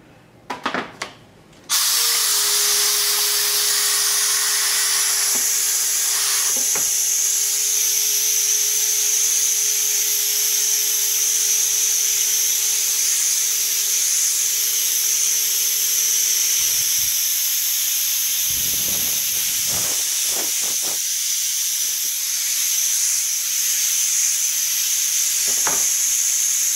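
Air-driven vacuum ejector of a Piab VGS3010 vacuum gripper, switched on with a couple of clicks and then running with a loud, steady hiss of exhausting compressed air while its suction cups hold a steel lawnmower blade. A faint steady tone sits under the hiss for much of the first half, and a few short knocks come as the blade is moved and set down.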